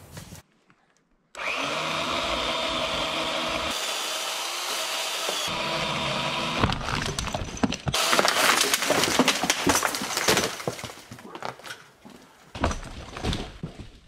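A pole saw runs steadily as it cuts through a branch holding up a large popple (aspen) trunk. About six and a half seconds in, the trunk comes loose and falls through the branches with a few seconds of cracking, snapping wood and crashing that then dies away.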